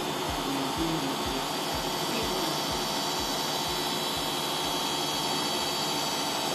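Bosch Classixx 5 washing machine running, a steady motor whine over a regular low throb about twice a second.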